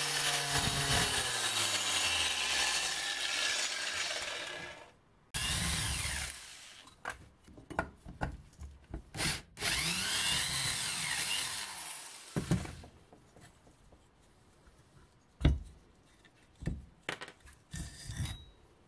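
Angle grinder with a disc working the steel head of a sapper ax, its motor slowing in falling pitch and stopping about five seconds in. Short runs of a cordless drill spinning against the steel follow, the longest in the middle, then sharp knocks of the steel ax head set down and handled on a wooden board.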